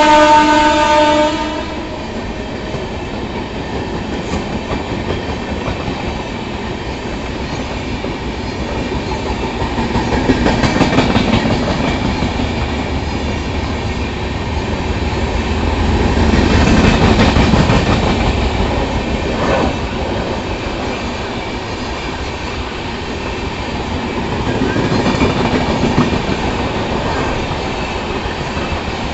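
Electric locomotive's horn blaring, cutting off about a second and a half in, then the steady rumble and clatter of passenger coaches rolling past, swelling and easing a few times.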